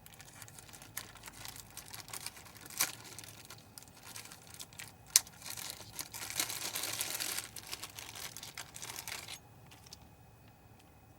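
Crinkling and irregular clicks of small objects being handled, with a few sharper clicks and a louder rustling stretch about six to nine seconds in, cutting off suddenly just after nine seconds.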